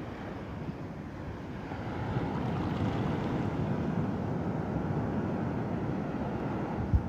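Ocean surf washing onto a sandy beach, mixed with wind buffeting the microphone; it grows louder about two seconds in. A brief low thump near the end.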